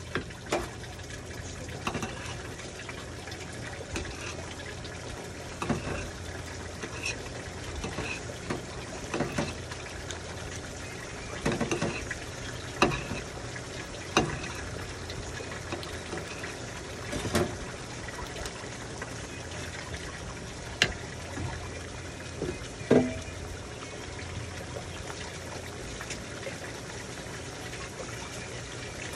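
Chicken curry simmering in a frying pan: a steady hiss with irregular bubbles popping, and a few louder knocks.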